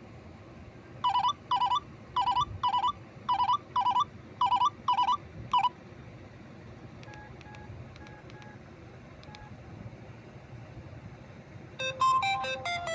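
Imitation Nokia 210 mobile-phone ringtones, synthesized electronic beeps. First about five pairs of short, loud warbling beeps, then fainter short beeps with clicks, and near the end a new quick melody of stepped tones begins.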